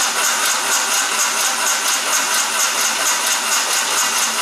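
Starter motor cranking a VW AP (EA827) four-cylinder engine steadily, about five beats a second, without the engine catching. The mechanic has checked the spark and suspects the engine is not getting fuel.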